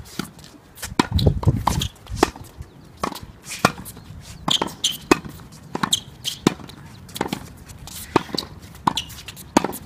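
Tennis balls struck by rackets and bouncing on a court during practice: an irregular series of sharp hits, about two a second. A low rumble runs under the hits from about one to two seconds in.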